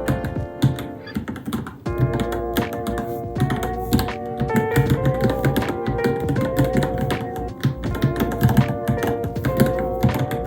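Fast, irregular key clicks of typing on a Varmilo Minilo mechanical keyboard, over steady background music with a melody.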